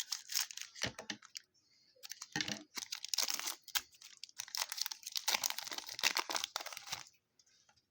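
A foil trading-card pack being torn open and the cards handled, a quick run of crinkling, rustling and clicking with a short lull about a second and a half in.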